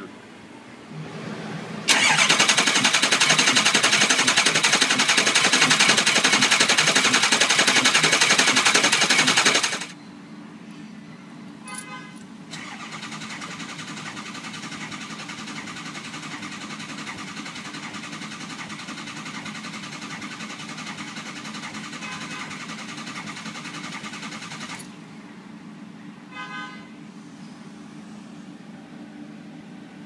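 Ford 6.0 Power Stroke V8 diesel being cranked on the starter without starting, for about eight seconds. It is a popping, uneven crank from the intake, the kind the technician ties to no base oil pressure. About two seconds after it stops, a second, quieter crank runs for about twelve seconds, again without the engine catching.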